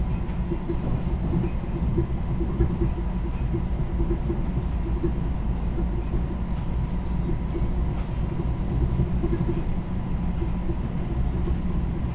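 Commuter train running at speed, heard from inside the passenger car: a steady low rumble.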